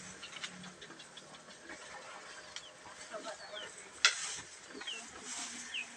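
Cattle eating cut grass at a concrete feed trough: irregular crunching, tearing and rustling. A few short falling bird chirps sound over it, and a single sharp knock about four seconds in is the loudest sound.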